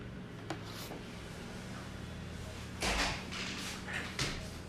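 A few knocks and clatters, like something being handled or shut, the loudest about three seconds in, over a steady low hum.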